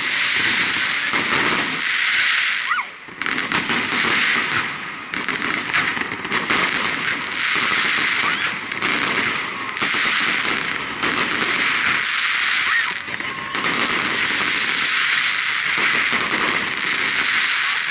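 Fireworks display going off overhead: a dense, continuous crackle of many bursts in rapid succession, easing briefly about three seconds in and again around thirteen seconds, with a couple of short rising whistles.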